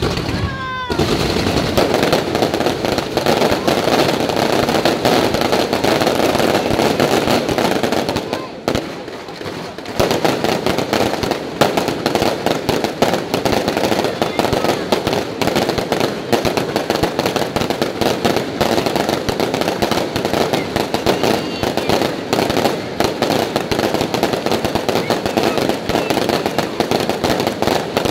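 Aerial fireworks going off in rapid, dense volleys of bangs and crackling that barely pause, with a short lull about eight seconds in.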